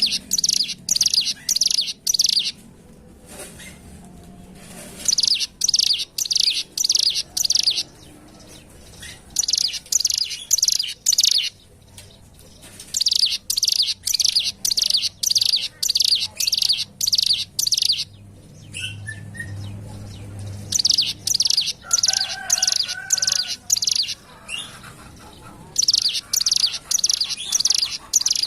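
Ciblek gunung, a prinia, singing in phrases of rapid, evenly repeated high notes, each phrase lasting a second or two, with short pauses between them. A few faint lower whistles come in about two-thirds of the way through.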